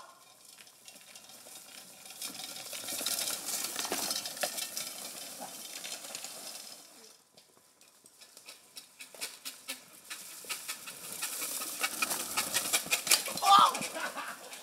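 Bicycle tyres rolling over dry leaf litter and twigs on a dirt trail: a crackling hiss that builds and fades as riders pass, twice, with a short shout near the end.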